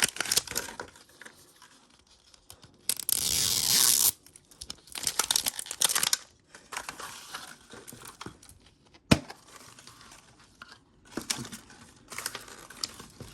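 Small plastic packaging bags being torn open and crinkled by hand, with one long loud tear about three seconds in and one sharp click about nine seconds in.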